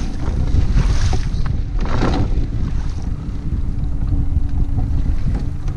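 Wind buffeting the microphone on an open boat, a steady low rumble, with water slapping against the hull and a brief louder rush of noise about two seconds in. A faint steady hum runs underneath.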